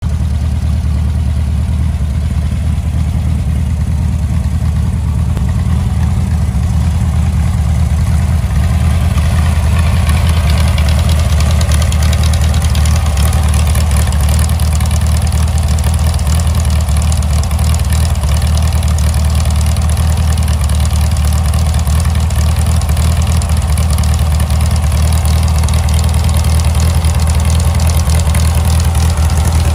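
Meyers Manx dune buggy's rear-mounted engine idling steadily, growing louder and brighter about ten seconds in.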